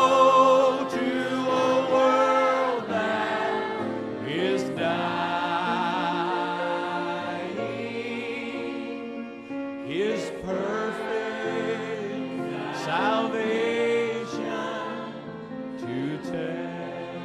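Group of voices singing a gospel hymn, accompanied by acoustic guitar and fiddles.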